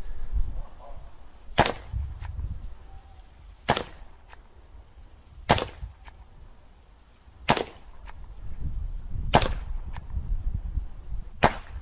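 Air revolver firing six .177 darts one after another, a sharp shot about every two seconds.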